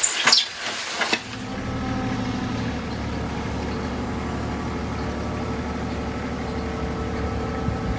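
About a second of irregular splashing, then a mini excavator's diesel engine idling steadily.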